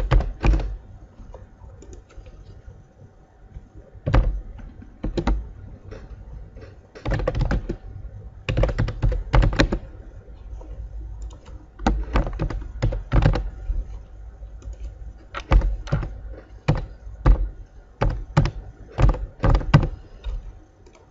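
Computer keyboard being typed on in irregular bursts of keystrokes, with pauses of a second or two between bursts, as text is entered field by field.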